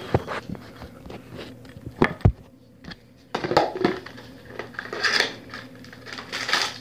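Packaging of a bar of soap being handled and opened by hand: a few sharp knocks and taps at the start, then rustling and crinkling from about three seconds in.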